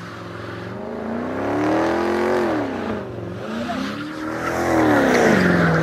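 A car doing donuts, its engine revving up and easing off twice while the tyres squeal and spin in smoke.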